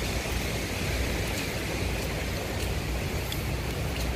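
Wind buffeting the microphone: a steady low rumble with a hiss over it, left by the passing Hurricane Dorian.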